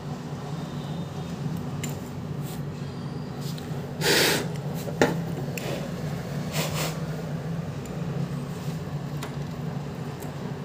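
A blue VGA monitor cable's plug scraping and clicking in a desktop computer's port as it is pulled out: a loud rustling scrape about four seconds in, a sharp click a second later, then lighter handling rustles. A steady low hum runs underneath.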